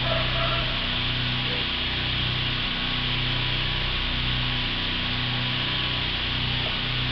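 A steady low mechanical hum under an even hiss, the hum swelling and dropping about once a second.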